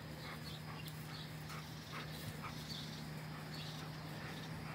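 Faint short dog sounds, repeated several times a second at uneven intervals, over a steady low hum.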